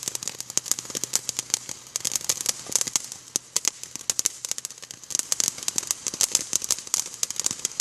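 Firework fountain burning, a steady hiss packed with rapid crackling pops.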